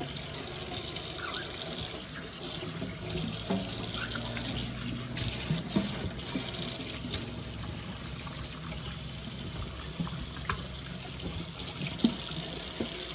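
Kitchen tap running into a sink while raw peeled shrimp are rinsed under it, with a few light knocks and clinks from handling them.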